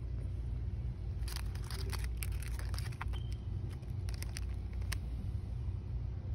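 A clear plastic bag crinkling and crackling as it is handled, in a flurry of sharp clicks lasting a few seconds, over a steady low background hum.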